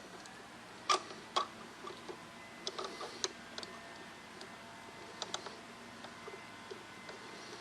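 Sparse light clicks and taps of small hand tools and parts being handled on a radio chassis, a couple of sharper clicks about a second in, then scattered softer ticks.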